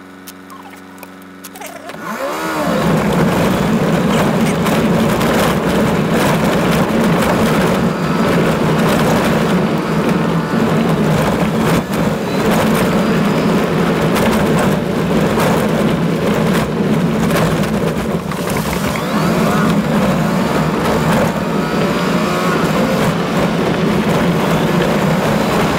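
Toyota Land Cruiser driving over a rough gravel track, heard from inside the vehicle: a steady drone of engine and tyres with constant crunching and rattling knocks from stones. It is quieter for about the first two seconds, then grows much louder and stays so.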